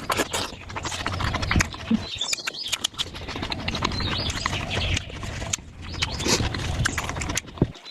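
Close-up eating sounds: wet chewing and lip-smacking on momos in spicy gravy, a rapid run of moist mouth clicks.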